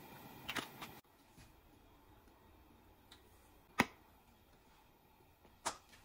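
A few short, sharp clicks from an oil bottle and cookware being handled at the stove: two small ones near the start, the loudest about four seconds in, another near the end. The oil pouring into the cold pan is nearly silent, with no sizzling.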